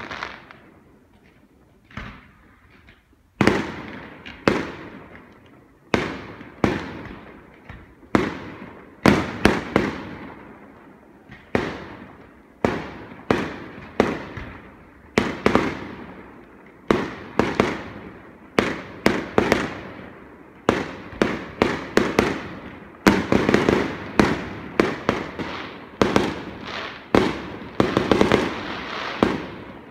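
Fireworks display: aerial shells bursting in an irregular series of sharp bangs, each trailing off in a rolling echo. The bangs come closer together and overlap in the last several seconds.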